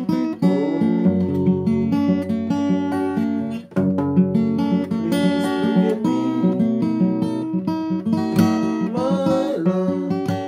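Acoustic guitar music, picked and strummed in quick successive notes, with a brief drop in level a little over a third of the way through.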